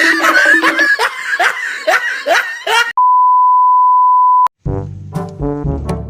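A music clip with repeated rising swoops and a pulsing low note, then a single steady 1 kHz censor beep held for about a second and a half, cut off abruptly. Brass music, trombone-like, starts right after the beep near the end.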